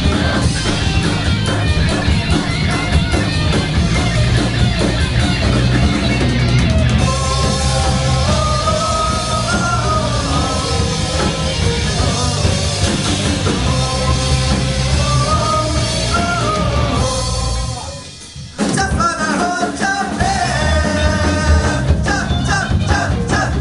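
Rock band music with drum kit, guitar and a sung melody. The band drops out almost completely for about half a second, about 18 seconds in, then crashes back in together.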